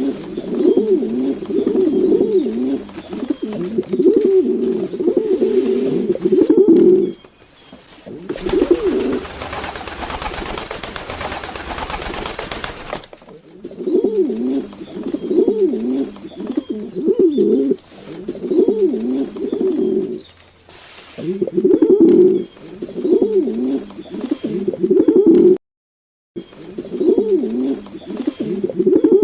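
Domestic pigeons cooing over and over in low, throaty phrases. From about a third of the way in, a rushing noise takes over for a few seconds, and the sound drops out briefly near the end.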